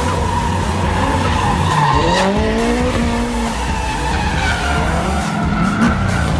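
Drift car engine revving hard under a sideways slide, with tyres skidding on the asphalt. The revs drop about two seconds in, then climb again.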